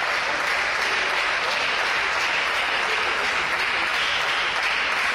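Applause from a small crowd of spectators in an indoor sports hall, a steady patter of clapping that runs on through a pause in play after a volleyball rally.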